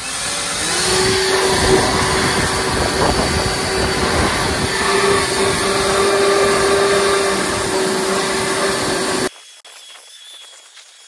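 Handheld leaf blower blowing debris out of a snowmobile's engine compartment: a steady whine with a rush of air, which winds up to speed in the first half second and cuts off suddenly about nine seconds in.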